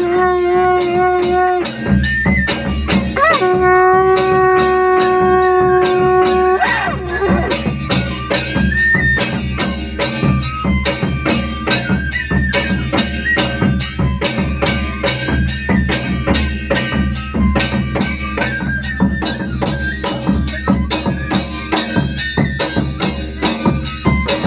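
A conch shell blown during aarti in two long held notes, each ending with a brief pitch glide. From about seven seconds in, fast, steady percussion takes over at roughly four strikes a second, with drums and jingles.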